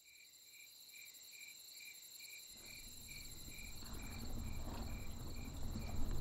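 Crickets chirping in a night chorus, a pulsed chirp about two and a half times a second over a steady high buzz, fading in. From about halfway through, a low rumble builds underneath.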